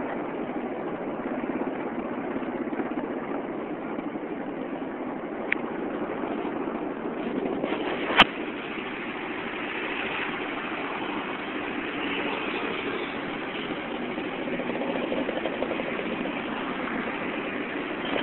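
Vehicle engine and road noise running steadily, heard from inside the moving vehicle. A faint tick comes about a third of the way in, then a single sharp knock a few seconds later.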